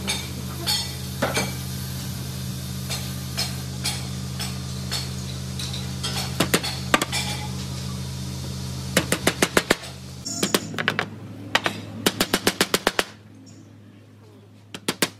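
Small hammer tapping thin nails into pine beading strips on a wooden door frame, in quick runs of light strikes, the fastest about six a second, from about six seconds in. A steady low hum underneath stops about thirteen seconds in.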